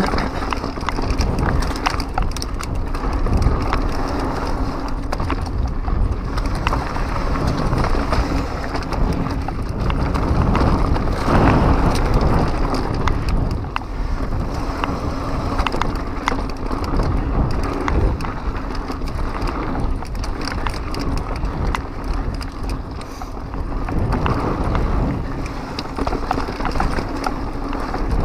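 2015 Pivot Mach 6 full-suspension mountain bike descending a rough dirt trail: continuous rolling noise and low rumble, with frequent clicks and rattles as the bike hits bumps.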